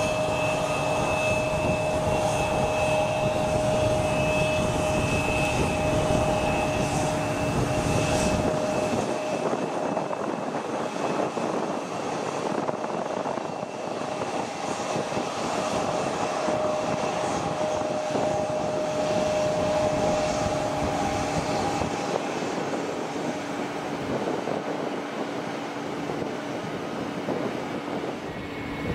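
Jet airliner engines running, a steady whine of several held tones over a broad rush of noise. A low rumble underneath drops away about a third of the way through.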